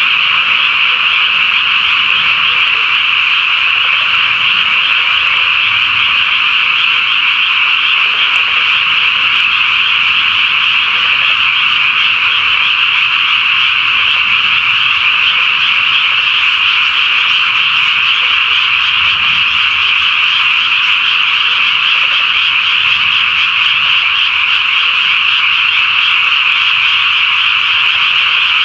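Dense chorus of many frogs calling at a pond, a steady, unbroken wall of calls with no pauses.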